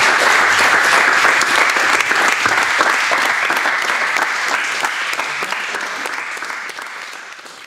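Audience applauding, the clapping fading away over the last few seconds.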